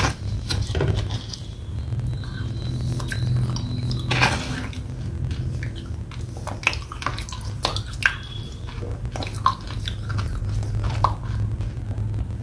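Close-up mouth sounds of eating wet red clay paste: squishy chewing with scattered sticky clicks and smacks, and a spoon working in a plastic tub, over a steady low hum.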